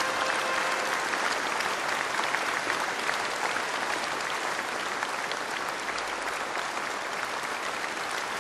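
Large audience applauding steadily, easing off slightly in the second half.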